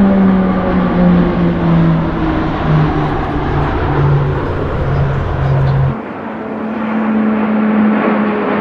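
A formation of single-engine turboprop display aircraft (Super Tucanos) flying past with a loud, steady propeller hum whose pitch slides lower as they go by. About six seconds in the sound breaks off abruptly to a steady, higher-pitched hum.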